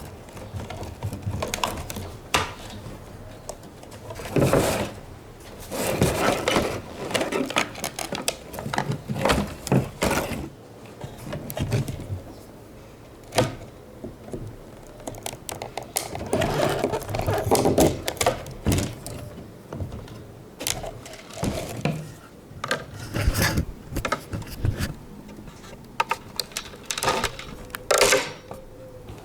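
Hand work on a car's fuel pump parts: irregular clicks, knocks and short scraping and rattling of hard plastic and metal pieces being handled and fitted.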